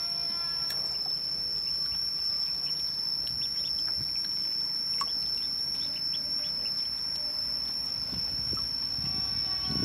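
Muscovy ducklings peeping in short, scattered chirps while paddling in a tub of water, over a steady high-pitched whine.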